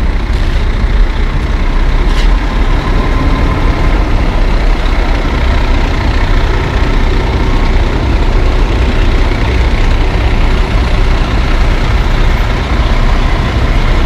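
Heavy diesel construction equipment running steadily, with wind buffeting the microphone into a constant low rumble.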